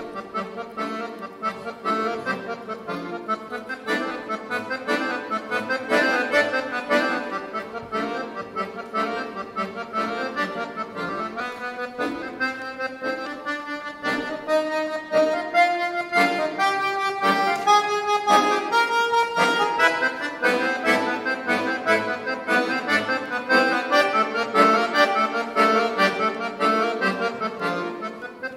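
Solo piano accordion playing a lively piece in short, rhythmic chords. In the middle, a run of single notes climbs step by step in pitch before the chords return.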